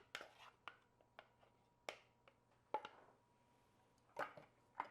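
Near silence in a kitchen: a few faint, scattered taps and light scrapes of utensils on kitchenware, over a low steady hum.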